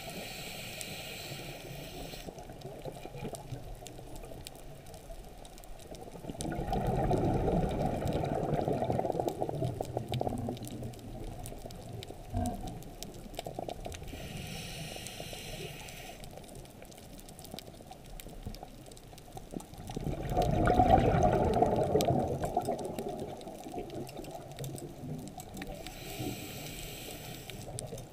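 A scuba diver breathing through a regulator underwater: a short hissing inhale three times, and between them two longer, louder gushes of exhaled bubbles, the second the loudest.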